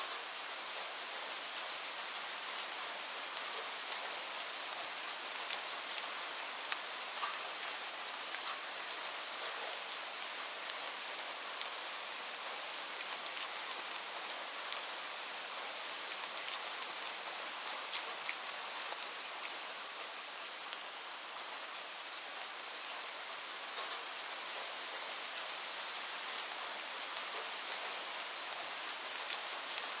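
Steady rain: an even hiss, with scattered sharp ticks of single drops landing close by.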